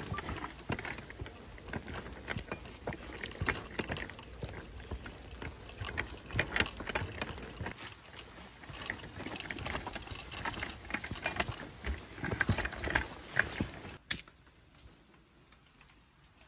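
Folding camp wagon being pushed along a dirt path, its wheels and frame rattling with dense, irregular clicks and knocks. About fourteen seconds in, one sharp click, then it goes much quieter.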